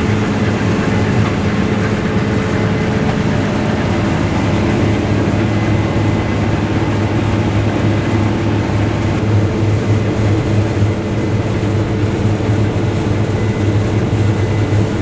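Case IH combine harvester running steadily while harvesting wheat, heard from the cab: a continuous engine and machinery drone with a faint steady high whine over it.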